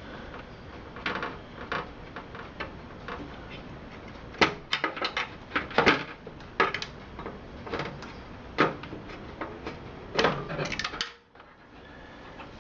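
Scattered clicks and knocks of a motherboard being worked loose and lifted out of a desktop PC case, hard plastic and metal knocking together at irregular moments. The loudest knocks fall about four and a half, six and ten seconds in.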